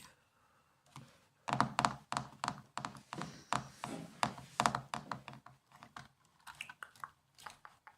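Typing on a laptop keyboard: a quick, irregular run of key clicks and soft thunks that starts about a second and a half in and slows near the end.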